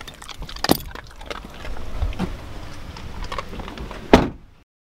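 A Vizsla eating dog treats, with scattered small clicks and knocks. A single loud thump comes just after four seconds, and the sound cuts off abruptly soon after.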